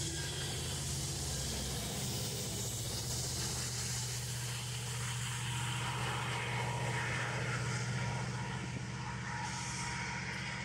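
Freight train rolling past and away: the steady low drone of a diesel locomotive at the rear of the train over the rumble and hiss of wheels on rail.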